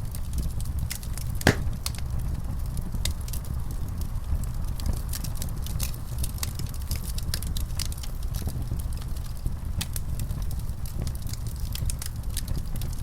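Wood fire in a fireplace crackling, with frequent small snaps and one louder pop about a second and a half in, over a low steady rumble of the flames.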